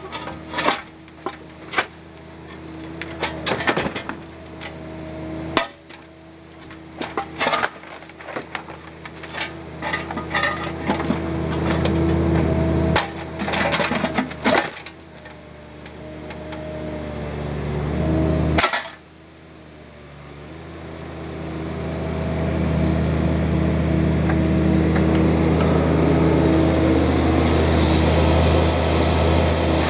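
Bobcat mini excavator's diesel engine running under hydraulic load while broken rock clanks and scrapes against the steel bucket and the pickup's bed, many sharp knocks in the first half and one heavy bang a little before two-thirds of the way in. In the last third the engine gets louder and runs steadily with no impacts.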